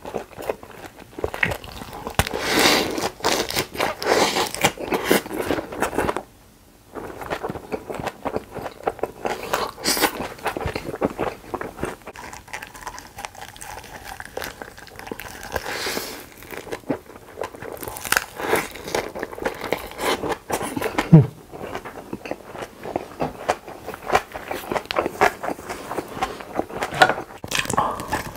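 Close-miked eating: wet chewing, crunching and mouth smacking as large lettuce-wrapped bites of meat and rice are chewed. It comes as a dense, irregular run of crunches and clicks, with a short break about six seconds in.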